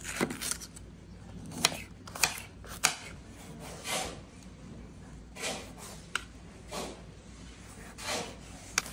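Chef's knife cutting a jalapeño and a tomato on a granite countertop: irregular sharp clicks as the blade meets the stone, with softer swishes of the blade slicing through, mostly in the second half.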